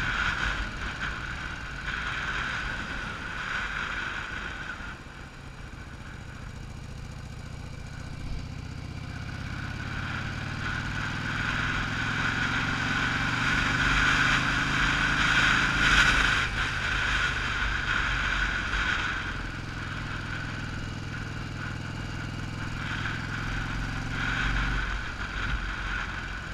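1982 Yamaha Virago 920's V-twin engine running under way. It climbs steadily in pitch for about ten seconds as the bike accelerates, drops sharply as the revs fall, then runs on at a steadier pitch.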